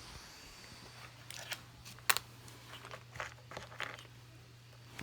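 Handling noises: a scattered run of short sharp clicks and crinkles, the sharpest about two seconds in, over a steady low electrical hum.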